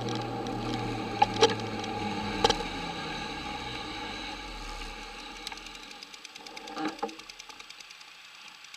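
Small moped engine running just ahead, dying away as it slows to a stop, with a few sharp knocks from the ride. From about six seconds in, a steady rapid ticking sets in, about five ticks a second.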